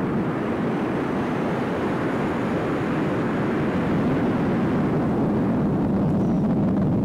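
Steady wind rushing over the microphone of a skydiver descending under an open parachute canopy.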